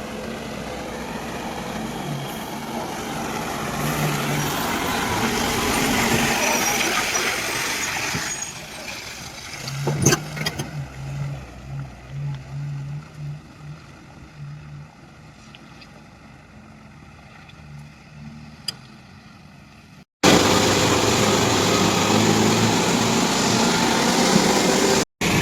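Excavator loading a truck: a diesel engine and hydraulics working, swelling over the first several seconds, with a sharp knock about ten seconds in followed by a pulsing engine note. About twenty seconds in the sound cuts abruptly to a much louder, noisier stretch of machine noise.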